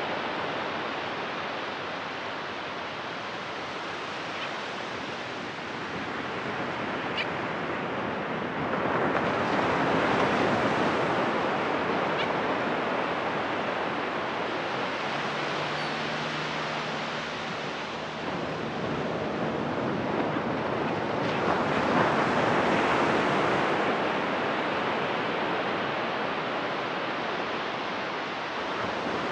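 Ocean surf washing onto a sandy beach: a steady rush of breaking waves, swelling louder about nine seconds in and again about twenty-two seconds in.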